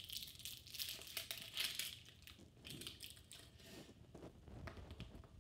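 Thin plastic wrapper crinkling and tearing as hands pick open a small toy packet, busiest in the first two seconds or so, then fainter and more scattered.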